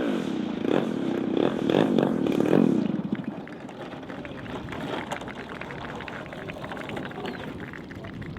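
Piston engine of a large radio-controlled model aircraft, revving up and down in several swells. It fades away about three seconds in, leaving a quieter background noise.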